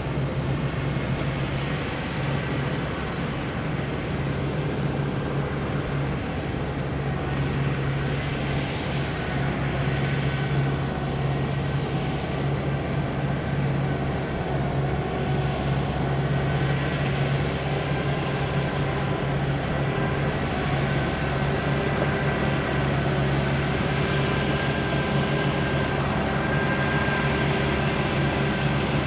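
Kubota diesel engine of a tracked rotary tiller running steadily under load while tilling a wet paddy, a constant low hum with higher engine tones above it. It grows a little louder in the second half as the machine comes closer.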